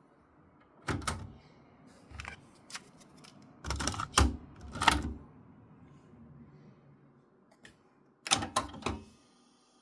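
Short mechanical clicks and clunks in several uneven clusters, as from the keys and tape mechanism of a Yamaha KX-330 cassette deck being worked, with no tape playback heard.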